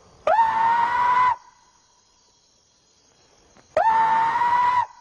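Two loud, high-pitched shrieking calls given as imitation Bigfoot calls, each about a second long, sweeping up quickly and then held on one pitch, the second coming about three and a half seconds after the first.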